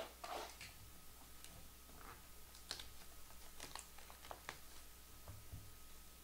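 Cellophane shrink-wrap being torn and peeled off a trading-card hobby box: faint, scattered crinkles and crackles of thin plastic, with a soft low bump about five seconds in as the box is handled.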